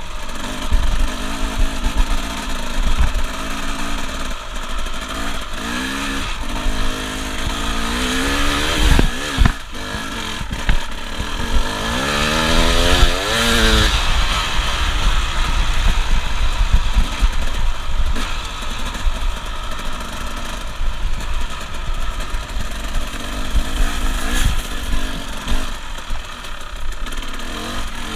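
Dirt bike engine running under way, revving up and easing off in several rising runs, with the biggest run of revs about halfway through. Wind buffets the microphone throughout.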